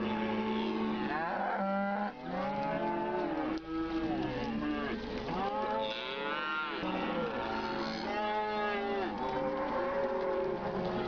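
A herd of cattle mooing, several calls overlapping almost without a break. Most are low and drawn out, with a few higher calls that rise and fall.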